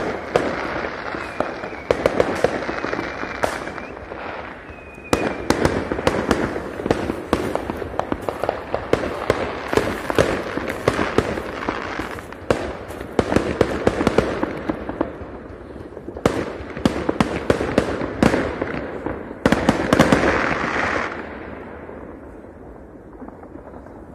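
Many aerial fireworks going off at once: dense, rapid bangs and crackling, with a thin high whistle in the first few seconds. The barrage dies down about 21 seconds in.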